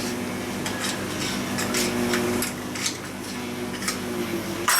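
Metal tools and parts clinking and scraping irregularly over a steady machine hum, with a loud metallic clank near the end.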